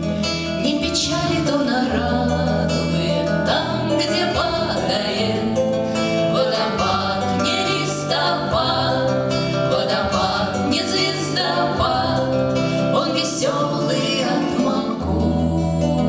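Women singing a Russian bard song to an acoustic guitar accompaniment.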